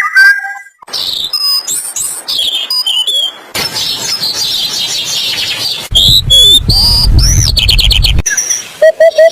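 Different birds chirping and whistling in short clips cut one after another, each clip with its own calls: quick chirps, whistled notes that rise and fall, and a rapid run of repeated notes. Under one clip, about six seconds in, a low rumble runs beneath the calls for about two seconds.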